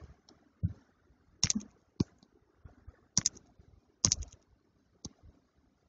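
Clicking of a computer input device: a handful of short, sharp, separate clicks at irregular gaps of about a second, with faint handling noise between.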